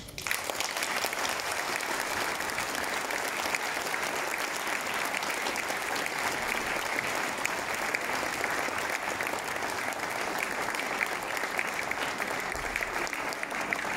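Audience applauding steadily: dense, even clapping from a large crowd.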